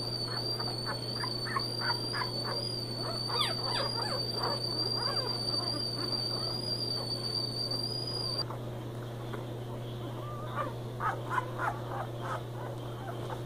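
Six-day-old Portuguese Water Dog puppies squeaking and whimpering in quick runs while rooting for the teats to nurse. A steady high-pitched whine in the background cuts off about eight seconds in.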